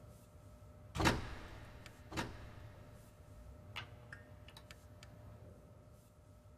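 Thumps and small knocks as a pianist reaches a grand piano and settles on the bench. The loudest thump comes about a second in and echoes off stone walls, a second one follows about a second later, then a few light clicks over a faint steady hum.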